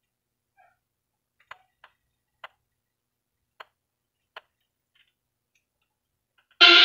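Five small, sharp clicks spaced over a few seconds from handling a wireless karaoke microphone and pressing its control buttons. Loud music with a voice starts abruptly near the end.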